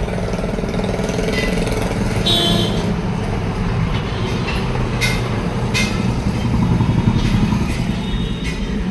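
An engine running steadily, with a few short clicks about five and six seconds in.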